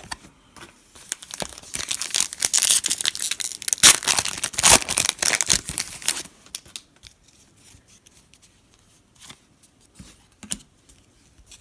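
A foil trading-card pack being torn open and its wrapper crinkled, a dense crackling rustle lasting about five seconds, followed by a few light clicks as the cards are handled.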